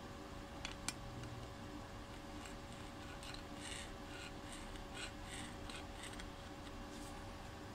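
Faint scratching and ticking of a stick-welding electrode's tip scraping and tapping along the welded edges of a steel lap-joint sample. Two sharp clicks come about a second in, then a run of short scrapes from about three to six seconds in, over a faint steady hum.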